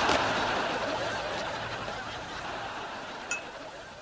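Studio audience laughing, the laughter dying away over a few seconds. A short click comes near the end.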